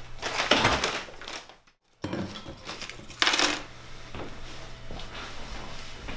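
A bunch of keys jingling, then clattering briefly onto a countertop about three seconds in. The first jangle cuts off suddenly to silence before the second.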